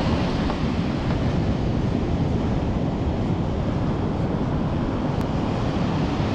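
Wind buffeting the microphone, a steady rumbling rush, over the wash of ocean surf breaking on the beach.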